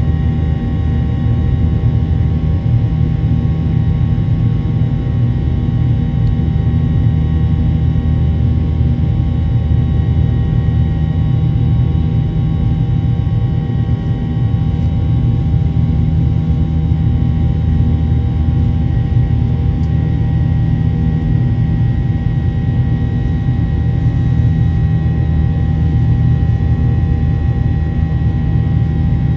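Boeing 737-800's CFM56-7B turbofan engines heard inside the passenger cabin: a steady, loud low rumble with several steady whine tones layered over it.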